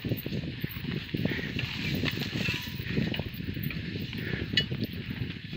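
Bicycle ridden over a bumpy grass track, the frame and parts rattling and knocking irregularly over the uneven ground, with a steady hiss behind and a sharp tick a little before the end.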